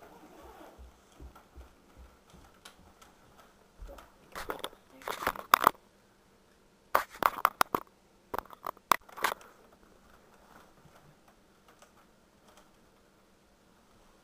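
Scratchy rustling and scraping as a handheld camera is handled and moved about, in two loud clusters of rough bursts, with a few soft thumps before them.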